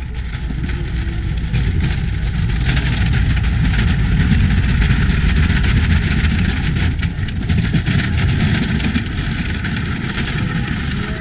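Motorboat engine running under way, swelling louder toward the middle and easing off again.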